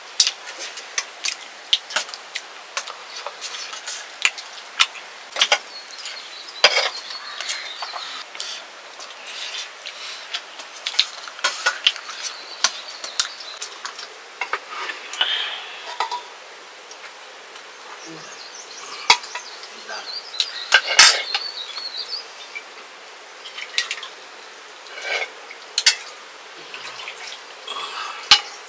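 Dishes and utensils clinking and knocking, scattered short strikes through the whole stretch, with insects heard faintly behind at times.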